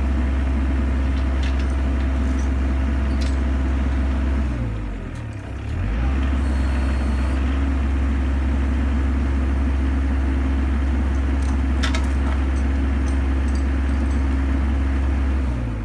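Compact excavator's diesel engine running steadily at working speed. About four and a half seconds in, its pitch sags and the level drops for about a second and a half before it picks back up, and near the end it falls away again. A few light clicks are heard over the engine.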